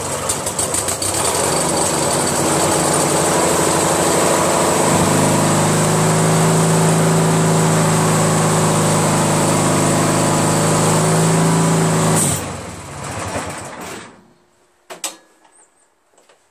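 14 hp Briggs & Stratton opposed-twin engine on a lawn tractor running steadily, its note settling about five seconds in. About twelve seconds in there is a click and the engine dies within a second or two. This fits the engine stalling as the electric PTO clutch is engaged and the mower deck will not turn. A few faint clicks follow.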